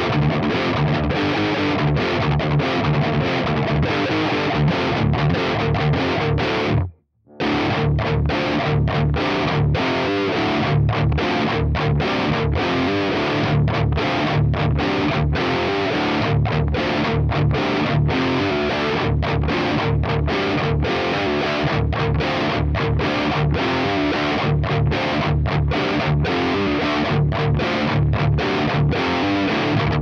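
Parker Fly Deluxe electric guitar with stock DiMarzio pickups played through a high-gain Diezel VH4 amp and a Mesa Boogie 4x12 cabinet with Celestion Vintage 30 speakers: a distorted riff with many short stops between notes, cutting out completely for about half a second some seven seconds in.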